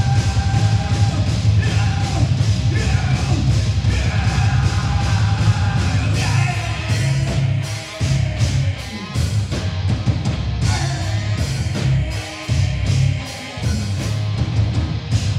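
Heavy metal band playing live: distorted electric guitars and a pounding drum kit, with a singer over them. In the second half the song turns choppy with stop-start hits, then cuts off at the end.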